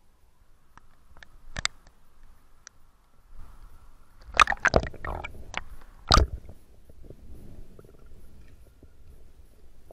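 Water splashing and sloshing against a waterproof-housed action camera as it breaks the lake surface and ducks back under, with low muffled gurgling. There is a cluster of sharp splashes about halfway through and one more strong splash a second or so later.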